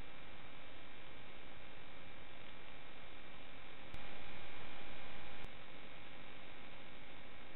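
Steady static hiss with a faint, even buzz of steady tones: the empty audio channel of an analog 5.8 GHz FPV video link. About four seconds in the hiss jumps louder for a second and a half, with a sharp click where it starts and where it stops.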